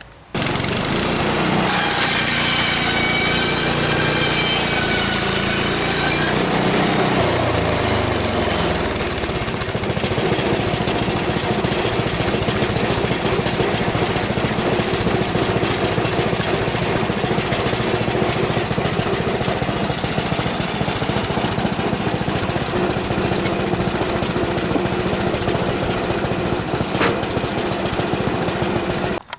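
Frontier OS23 bandsaw sawmill running under load as its blade cuts through a stack of four 1.5-inch pine flats: a loud, steady engine and blade drone. A wavering high whine sounds in the first few seconds.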